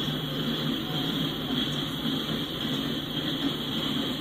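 Freight cars, covered hoppers and a tank car, rolling slowly past: a steady rumble of steel wheels on rail, with a constant high hiss over it.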